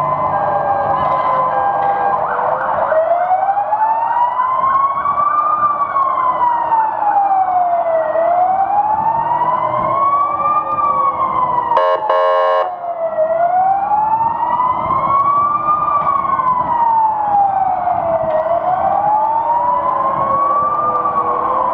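Ambulance siren wailing, its pitch rising and falling slowly about every five seconds. About twelve seconds in, a short blaring horn blast cuts across it.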